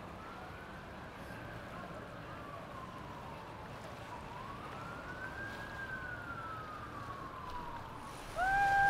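Siren wailing in slow rises and falls, each cycle about four seconds. Near the end a louder, steady held tone starts.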